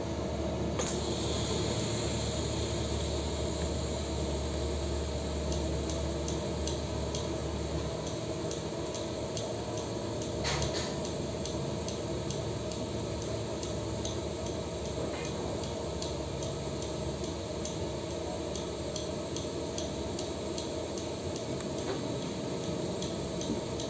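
TIG welding arc on a steel pipe fitting: a steady hiss and sizzle that starts about a second in, with faint crackling ticks scattered through it.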